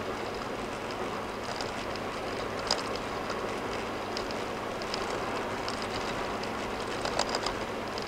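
Steady tyre and road noise of a car cruising at about 50 mph on a concrete slab toll road, heard from inside the car. Light knocks and ticks break through now and then, the loudest about three seconds in and a few more near the end.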